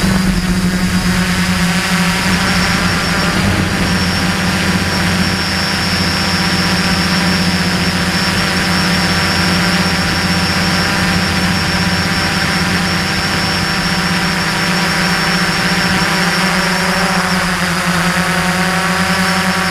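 DJI F450 quadcopter's electric motors and propellers running steadily in flight, a low hum with a thin high whine above it, picked up close by the camera on the airframe.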